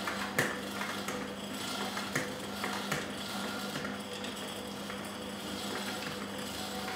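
Kitchen clatter: a few sharp knocks and clinks of blender parts and utensils being handled, over a steady low electrical hum.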